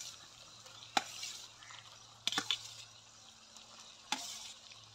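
Steel spoon clinking and scraping on a steel plate as half-cooked bottle gourd pieces are pushed off into a pan of ghee masala gravy, which sizzles faintly. Sharp clinks come about a second in, twice close together near the middle, and once more about four seconds in.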